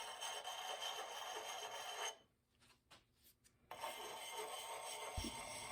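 Kerosene-soaked axe puck sharpening stone, smooth side, rubbing in strokes across the steel bit of a Plumb axe to hone off a burr. The steady scraping stops for about a second and a half midway, then resumes. A low knock comes near the end.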